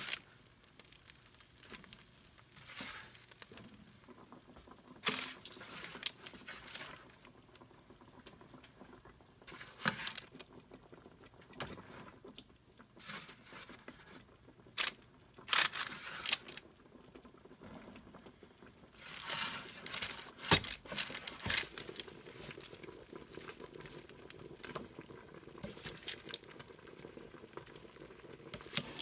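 Kitchen handling noises: irregular light clicks, knocks and crinkling rustles from utensils and packaging, with a denser run of them about twenty seconds in.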